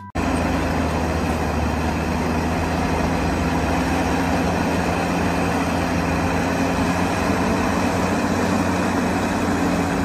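Caterpillar crawler bulldozer's diesel engine running steadily, a deep even drone with no change in pitch.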